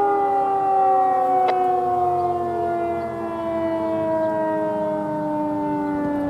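Federal Signal 2001-130 rotating outdoor warning siren sounding its two-tone chord, the pitch falling slowly and steadily. A single sharp click comes about a second and a half in.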